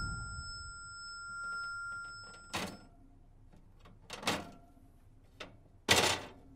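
A couple of high, steady electronic tones hold and then stop, followed by four short, sudden knocking noises spaced a second or two apart, the last the loudest.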